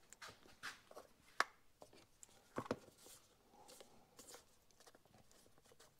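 Faint handling noises at a workbench: a paper shop towel rustling and small engine parts being picked up, giving a handful of light clicks and scuffs spread through, the sharpest about a second and a half in.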